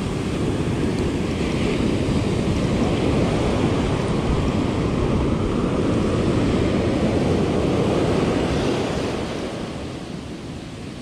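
Wind buffeting the microphone over the wash of sea water, a steady rushing noise that eases off near the end.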